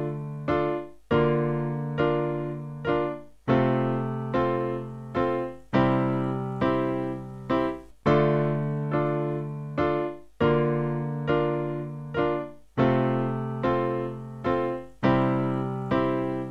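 Background music: an electric piano plays a slow repeating pattern, a chord struck about every two and a quarter seconds and left to fade, with a few shorter notes in between.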